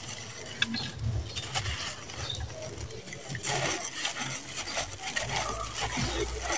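Dry, gritty red sand-cement chunks being crushed by hand and crumbling apart: many small crisp crackles and ticks as grains and bits fall, with a denser rush of falling grit about halfway through.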